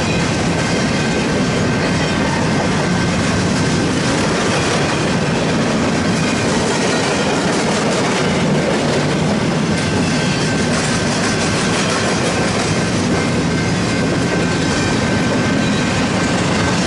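Empty intermodal freight cars rolling past at speed: a steady, loud rumble and rattle of steel wheels over the rail joints, with a faint steady high tone above it.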